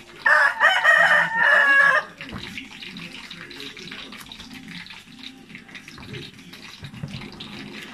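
A rooster crows once, loud and lasting under two seconds, over the steady sizzle of eggplant slices frying in hot oil in a wok.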